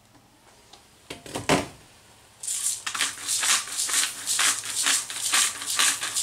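Pepper being ground into the pot: a quick run of short, dry, gritty strokes, about three a second, starting a couple of seconds in, after a knock about a second and a half in as the grinder is picked up and set going.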